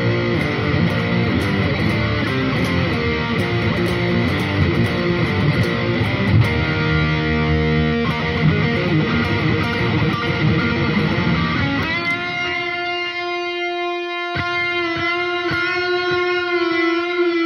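Electric guitar played through overdrive: dense, distorted playing, then about twelve seconds in a single held note that rings on and wavers slightly near the end.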